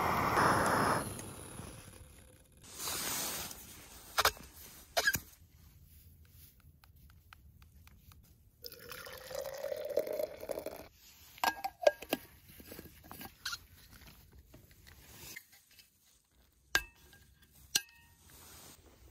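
Hot water poured into a cup for coffee, the pitch of the pour rising as the cup fills, with scattered clinks and knocks of camp cookware. A steady rushing hiss cuts off about a second in.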